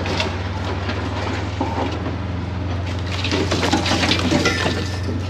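Side-by-side buggy engine running at a steady drone as it pushes through scrub, with branches brushing and crackling against the front rack and body, thickest about three to four and a half seconds in.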